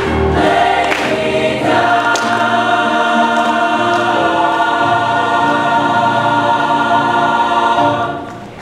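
Mixed-voice high school choir singing the closing phrase of a song and holding its final chord, which fades away near the end.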